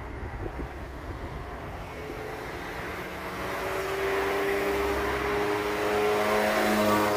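A motor vehicle passing close by: its engine hum and road noise build over several seconds and are loudest near the end.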